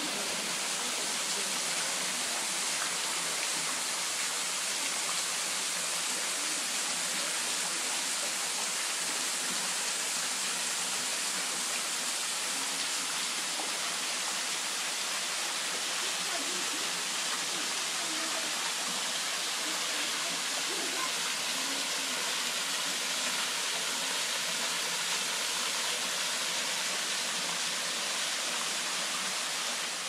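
Steady rush of a low-flow waterfall, thin streams of water splashing down a sandstone face into a shallow pool.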